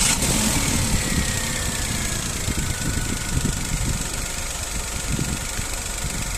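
Car engine idling steadily, with a faint whine slowly falling in pitch early on.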